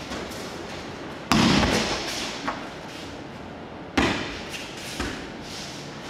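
Aikido breakfalls (ukemi): the thrown partner's body and arms slap down on the dojo mat, with loud thuds about a second in and again about four seconds in and lighter thumps between them. Each thud rings on briefly in the hall.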